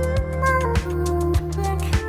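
Background music with a steady beat of about two hits a second over a held bass and a gliding melody line.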